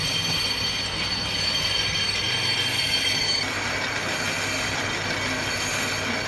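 Brake disc being skimmed on a brake lathe: the machine running with a steady mechanical noise and a high steady whine from the cut, the whine stopping about three and a half seconds in while the lathe keeps running.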